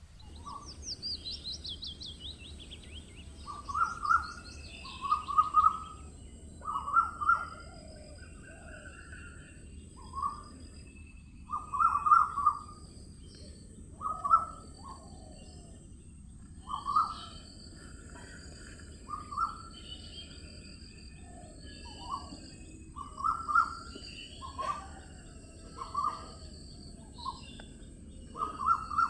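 Several wild birds singing and calling. Short calls repeat every second or two and are the loudest sound, and a fast high trill comes in the first few seconds. A thin steady high tone runs underneath.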